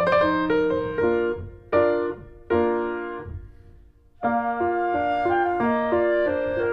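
Background piano music. A phrase ends in a few chords that fade almost to nothing about three and a half seconds in, and the playing starts again about half a second later.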